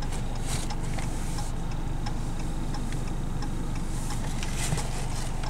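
Car cabin noise while stopped in traffic: a steady low hum, heard from inside the car, with a faint regular ticking running through it.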